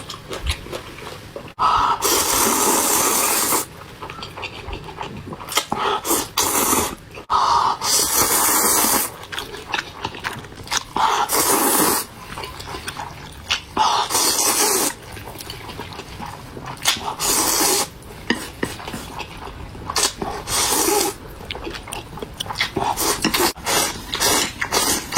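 A person slurping mouthfuls of spicy instant fire noodles: a string of long, loud slurps roughly every three seconds, with quieter chewing and mouth sounds between.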